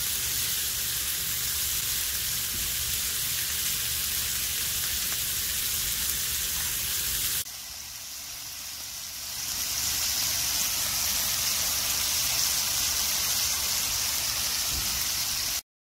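Beef steak chunks with onions and garlic sizzling steadily in a frying pan on a portable butane gas stove. The sizzle drops suddenly about halfway through, then builds back up, hissier, and stops abruptly near the end.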